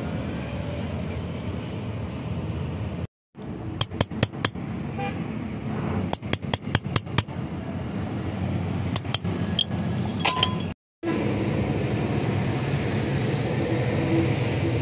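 Small metal parts clinking against the metal hydraulic jack base in short runs of sharp clicks, over steady background traffic noise. The sound drops out to silence twice, briefly.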